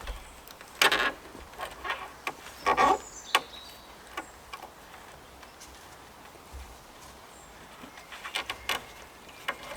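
Scattered light knocks, clicks and rustling scrapes of hazel poles and cord being handled and lashed, with louder scrapes about one and three seconds in and a quick run of clicks near the end.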